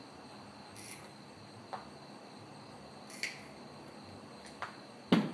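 Hand tools being worked on a workbench: several light clicks and snips of clippers trimming rope cord, then a louder knock near the end.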